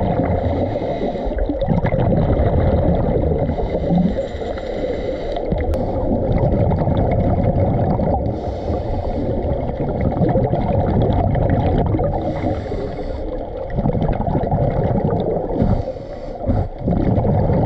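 Underwater sound heard through a camera housing: a steady, muffled rumble of water. Hissing bursts of scuba divers' exhaled regulator bubbles recur about every four seconds.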